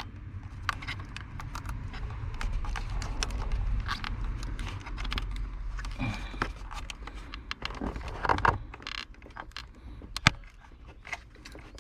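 Scattered small plastic clicks and rattles as a bulb holder is worked into the back of a 2002 Ford Ranger's gauge cluster, with one sharper click about ten seconds in.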